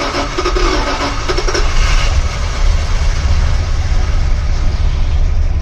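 1978 Dodge Ramcharger's engine running at a steady idle moments after catching, heard from inside the cab. It is the first run on a freshly rebuilt Carter two-barrel carburetor, with the choke working.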